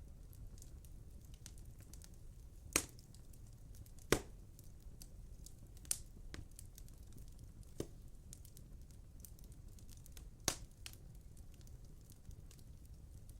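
Wood fire crackling in a fireplace insert: irregular sharp pops, about five loud ones, over faint ticking and a low steady rumble.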